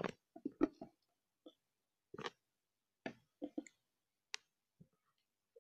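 Glossy, fluffy slime being handled with the fingers, giving scattered, irregular soft clicks and small pops.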